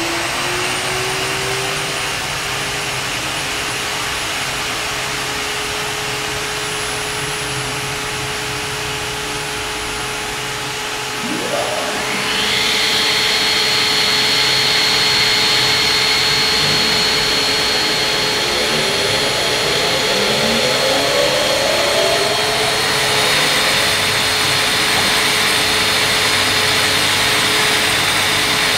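Woodworking machine motors running with a steady whine. Another motor spins up about eleven seconds in, making it louder and adding a higher whine, and more motors spin up around twenty seconds in, layering over the others.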